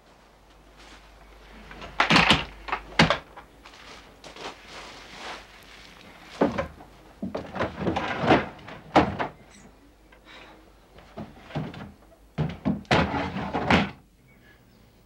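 Rummaging: thunks and knocks as a wooden board, a cabinet and cardboard boxes are moved and searched through. The sounds come in three clusters of handling noise.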